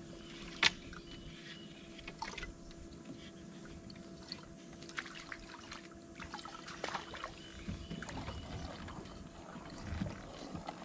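Small scattered clicks and knocks of a fishing rod and reel being handled in a kayak, with one sharp click just under a second in. A faint steady hum stops about three-quarters of the way through.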